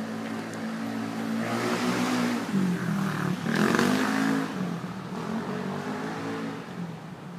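An engine running steadily, its pitch dipping and rising again about midway, with two bursts of hiss over it.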